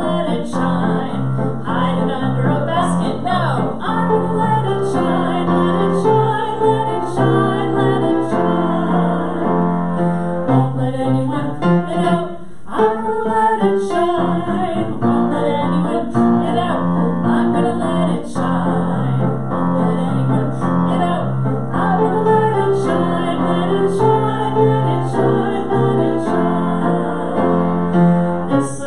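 A woman singing a children's chapel song, accompanied on an upright piano; the music keeps a steady beat with a brief pause about twelve seconds in.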